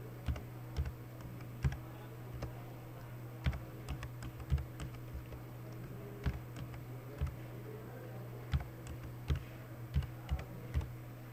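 Slow, uneven typing on a computer keyboard: single keystrokes with short pauses between them, over a steady low hum.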